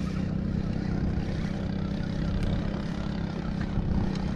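Boat engine running steadily with an even low hum that holds its pitch, with a few faint clicks over it.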